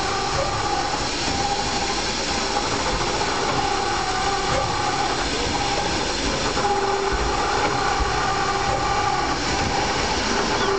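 Roof-tile pressing machine running: a steady mechanical clatter and rumble with a faint hum that comes and goes.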